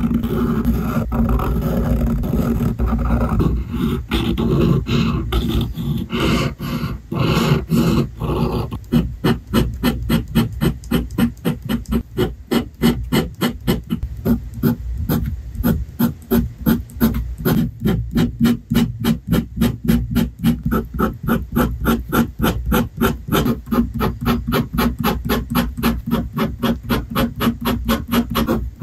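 Fountain pen nib scratching across paper, close-miked. For about the first eight seconds it makes longer continuous strokes, then turns to quick short hatching strokes at about three or four a second.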